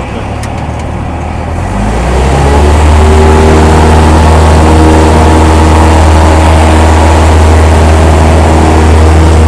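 Cessna 172's engine and propeller heard from inside the cabin, brought up to full power about two seconds in: the drone climbs in pitch and loudness, then holds steady for the takeoff roll of a touch-and-go.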